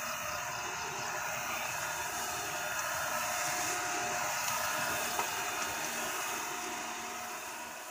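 Backpack motorized mist blower running steadily as it sprays insecticide: a steady engine drone under a rushing hiss of air. It fades out near the end.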